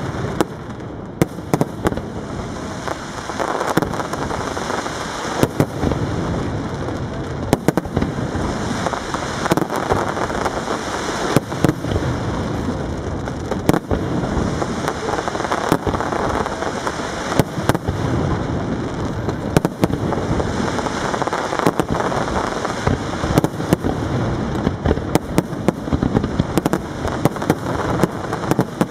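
Aerial fireworks display: a dense, continuous crackle of bursting shells, broken by frequent sharp bangs at irregular intervals, often several a second.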